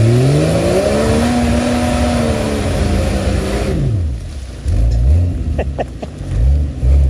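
Rock crawler buggy's engine revving hard as it climbs a rock ledge: the revs rise, are held high for a few seconds with a rushing hiss over them, then drop, followed by three short blips of throttle.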